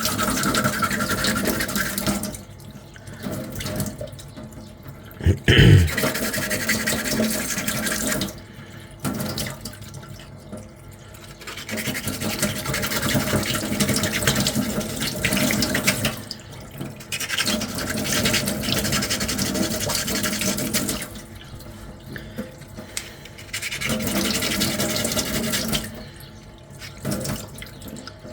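Sandpaper rubbing back and forth on a small 3D-printed armour ring coated in spray putty, in bouts of several seconds broken by short pauses. A single sharp knock about five and a half seconds in is the loudest sound.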